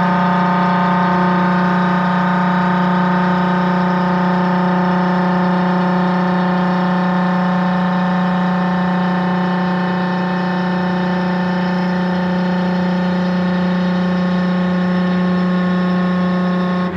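CNC lathe spindle running at a constant speed while a CNLG roughing insert turns a bar held between chuck and tailstock, cutting dry with the coolant off: a steady, even whine of several pitched tones.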